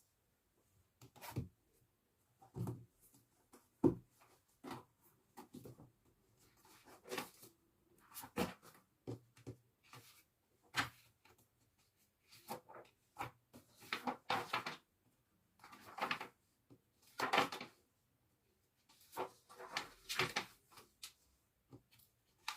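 Irregular knocks, clacks and rustles of small objects being handled and set down, one every second or so, some sharper and some softer.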